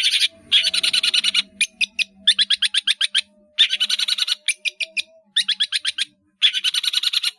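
Long-tailed shrike (cendet) singing: phrases of about a second of rapid, repeated chattering notes with short breaks between them, a song full of calls mimicked from other birds.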